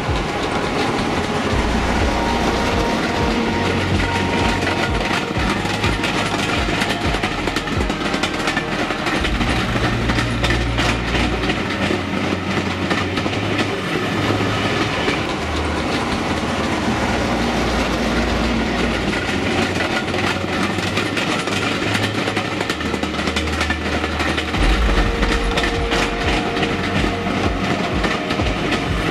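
Diesel locomotive hauling passenger coaches, its engine running under the rattle and clatter of wheels over the rails.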